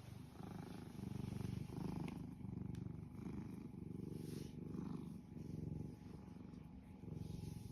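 Domestic cat purring steadily, the low rumble swelling and easing about once a second with each breath in and out.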